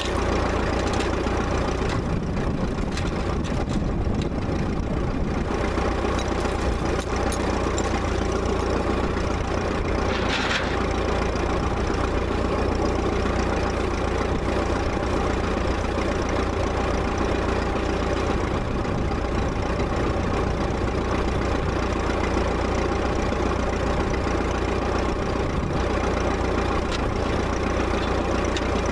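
Old R-model tractor's engine idling steadily, with one short knock about ten seconds in.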